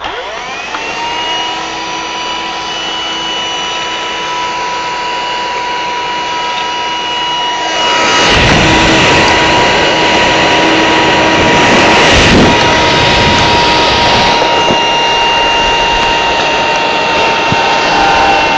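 Small handheld vacuum cleaner switched on: its motor whine rises to speed in the first second, then runs steadily. From about eight seconds in it sucks up hamster bedding from the cage floor, adding a louder rushing, rattling noise.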